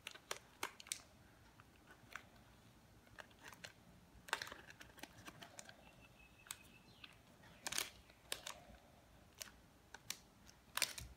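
Scattered faint clicks and crinkles of a foil snack bag being handled and squeezed in a small plastic handheld bag heat sealer.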